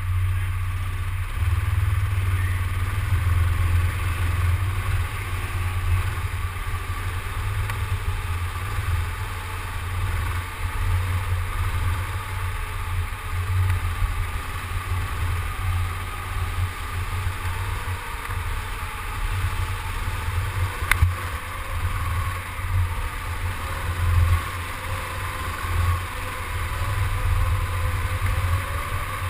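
Go-kart engine heard from the driver's seat, pulling away about a second in and then running hard through the laps. A deep rumble rises and falls, with a steady higher drone above it. A single sharp click comes about twenty seconds in.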